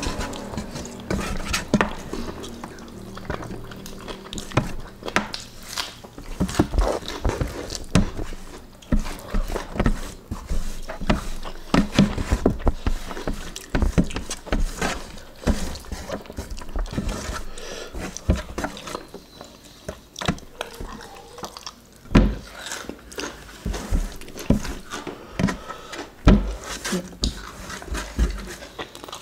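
Close-up eating sounds of chicken and rice eaten by hand: wet chewing and lip smacking, made up of many short irregular clicks, along with fingers picking food off a metal tray.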